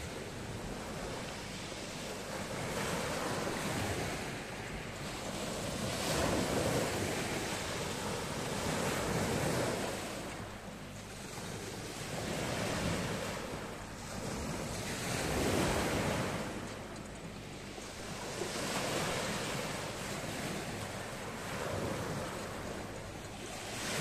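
Small sea waves breaking and washing up a pebble beach, the surf swelling and fading about every three seconds, with wind buffeting the microphone.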